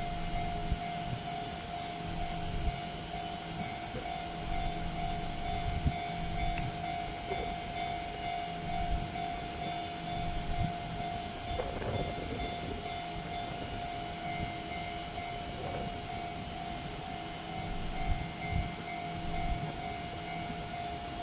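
Japanese railway level-crossing warning bell ringing steadily, with a train's low running noise underneath.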